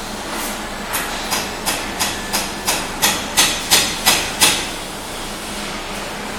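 Horn test machine working: about eleven sharp mechanical clacks, roughly three a second, growing louder, then stopping, over a steady background hum.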